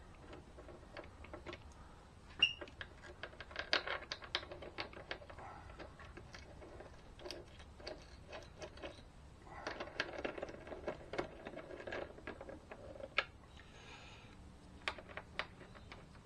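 Irregular light clicks, taps and short scrapes of small metal parts and hand tools as a bracket and brake-line clip are fitted in a car's engine bay, coming in two busier clusters.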